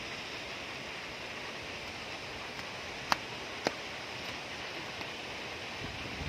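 Steady rushing of flowing water, a mountain stream, with two short sharp clicks about half a second apart near the middle.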